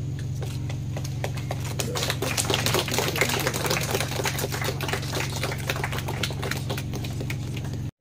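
A small group of people clapping, the claps starting about a second and a half in and thinning out near the end, over a steady low hum.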